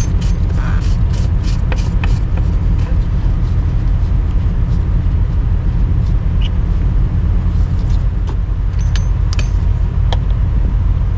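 Small clicks and knocks of a hand screwing the fuel filter housing cap back on, over a steady low rumble.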